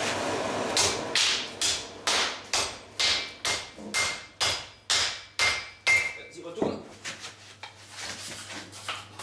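Hammer blows on a white-hot iron bar at the anvil during forge welding. About a dozen ringing strikes come at a little over two a second and stop about six seconds in, followed by a few weaker knocks.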